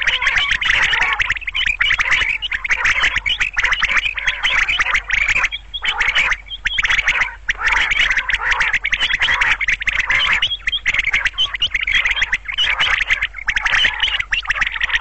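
Common quail calling in a dense, rapid, continuous chatter, with a few short breaks about six to seven seconds in.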